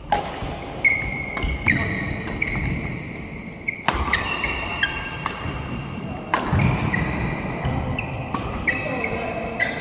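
Badminton doubles rally in a hall: sharp racket strikes on the shuttlecock about every second, mixed with short high squeaks of shoes on the court floor.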